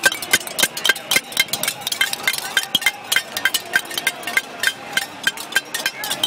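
Sharp metallic clanks, several a second and unevenly spaced, each with a brief ringing: metal objects struck over and over by people in a protest crowd.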